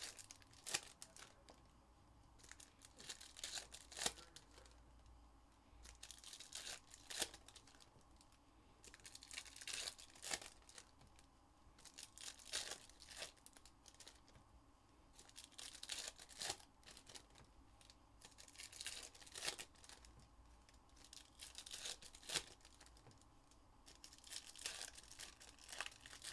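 Plastic wrapping on a trading-card box or packs being torn and crinkled by hand, in scattered bursts with light clicks, faint.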